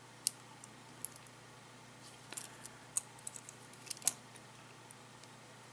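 Scattered light clicks and taps as the Galaxy Gear smartwatch's strap, pin and clasp are handled. They come singly at first, then in a quick cluster in the middle.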